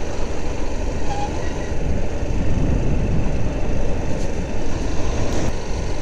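Motorcycle under way at road speed: a steady rush of wind on the microphone mixed with engine and road noise.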